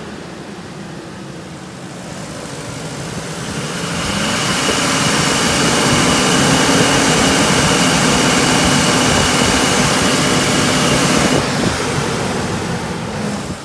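Ford 5.4 L Triton V8, its timing chains just replaced, idling and then revved up: the engine climbs over a couple of seconds, holds at raised revs with a steady high whine for about seven seconds, then eases back near the end. It runs without the rattling "box of rocks" sound of worn timing chains.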